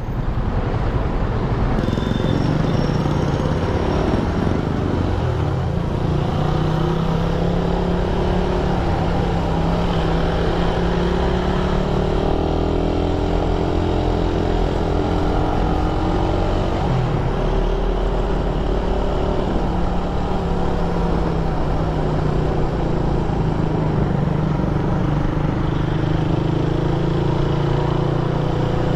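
Suzuki Raider 150's single-cylinder engine running while riding in traffic, its note rising and falling with the throttle.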